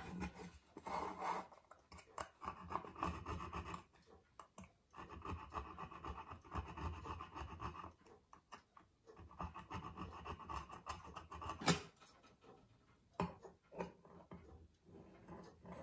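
A small hand scraper drawn over the edge of a metal pocket-watch case ring, giving stretches of dry metal scratching a few seconds long. There is a single sharp click about three-quarters of the way through. Near the end come shorter rasping strokes of a hand file on the case.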